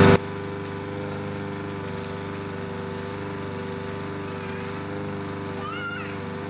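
A lawn mower engine running steadily. Its level drops sharply just after the start, and the engine runs on more quietly. A brief high chirp sounds near the end.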